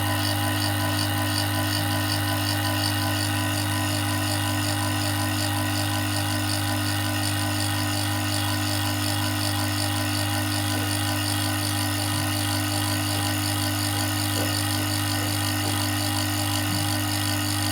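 Electric motor-driven pump running steadily, with a strong low hum over a constant hiss, as used to pull a vacuum on a fridge's refrigerant system.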